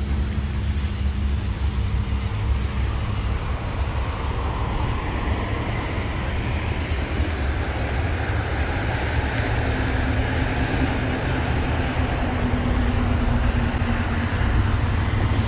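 Road traffic: cars passing on an adjacent road, a steady low rumble that swells slightly toward the end.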